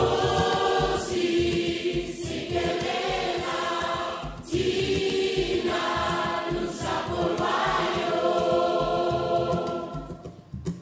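Mixed choir of children and adults singing together in long held notes, breaking off briefly about four and a half seconds in and fading near the end.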